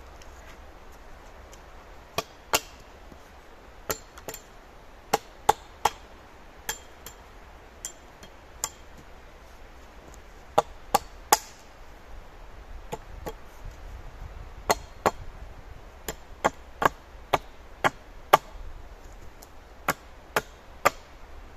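Sharp blows of a hand tool on wood, in irregular runs of two to four strikes a fraction of a second apart with short pauses between, some leaving a brief ring.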